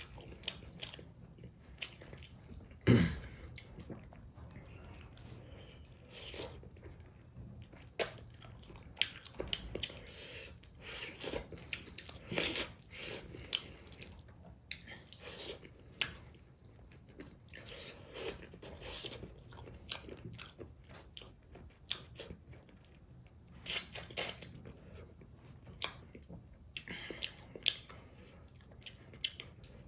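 A person eating: chewing and biting food, with irregular sharp crunches and clicks. The loudest crunch comes about three seconds in.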